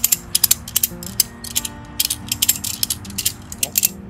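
Steel slackline ratchet being cranked, its pawl clicking in quick irregular runs as the lever is pumped to tension the webbing.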